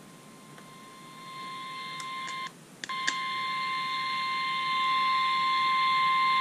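Emergency alert attention tone sounding before a severe thunderstorm warning: a single steady high beep near 1 kHz, in the manner of the weather radio warning alarm, with a light hiss under it. It fades up, breaks off for a moment about two and a half seconds in, then comes back louder and holds.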